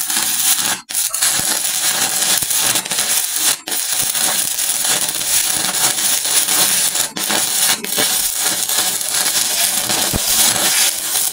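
Shielded metal arc (stick) welding with an E6011 electrode on a vertical root pass in steel plate: the arc's dense, steady crackle and sputter, cutting out for an instant a few times.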